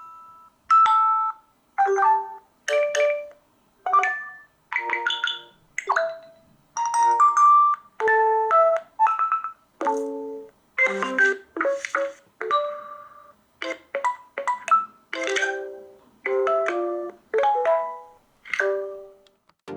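Nokia G50 5G smartphone playing its preset notification tones one after another: about twenty short chimes and jingles, each lasting a second or less, with a short silence between each.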